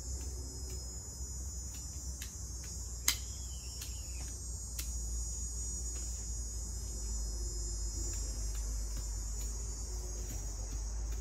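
A steady, high-pitched chorus of insects over a low rumble, with scattered faint clicks and one sharp click about three seconds in.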